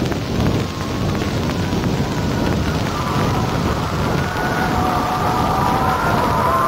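Steady rumbling, rushing noise on an old film soundtrack, with several wavering high tones joining in about three seconds in.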